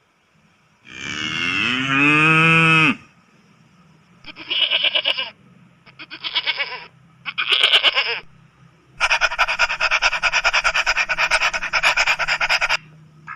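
A cow mooing once, a long call that falls in pitch. It is followed by three short wavering goat bleats. Near the end comes a long, rapidly pulsing animal call.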